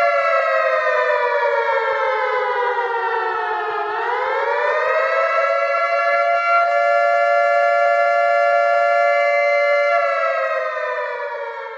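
Civil-defence air-raid siren sounding a mock-drill warning. The wailing tone falls in pitch for about four seconds, rises again, holds steady, then winds down and fades near the end.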